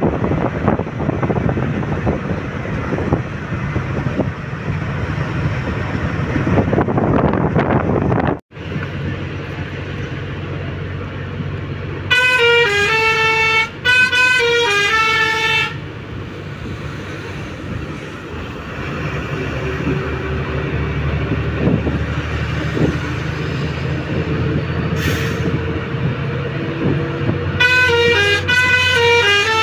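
Steady engine and road rumble of a bus running on a highway. About twelve seconds in, and again near the end, a loud musical multi-tone vehicle horn plays a short stepping tune several times over, sounded to overtake a truck ahead.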